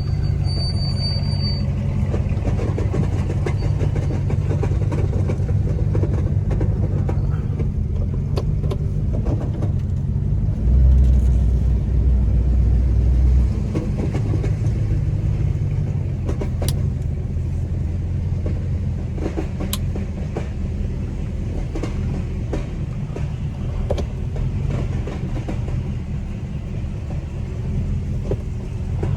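A Mercedes car engine running at low speed as the car is slowly maneuvered, a steady low hum that swells louder for a couple of seconds about halfway through, with a few light clicks and knocks.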